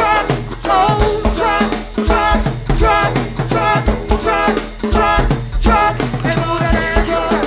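Go-go funk music: a live band's steady drum-kit and percussion groove with a strong bass line and pitched melodic parts over it.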